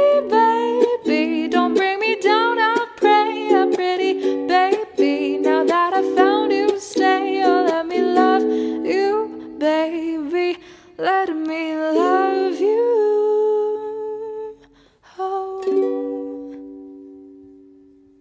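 Acoustic soundtrack music: a wordless, gliding melody over held chords. It ends on a final chord that rings out and fades away near the end.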